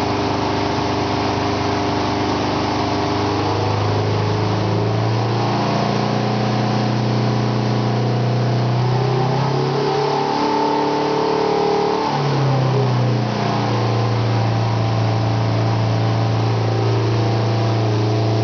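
Subaru car engine in a Rotorway Scorpion experimental helicopter running steadily on a ground test run, driving the rotor system. About halfway through the engine speeds up, holds for a couple of seconds, then drops back to its earlier steady speed.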